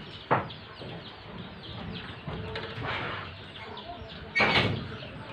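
Chickens clucking and chirping in the background. There is a sharp click soon after the start and a louder, harsh burst about four and a half seconds in.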